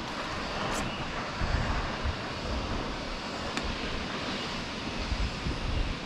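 Steady rushing noise of the Tad Fane waterfall pouring into its gorge, with low gusts of wind buffeting the microphone about one and a half seconds in and again near the end.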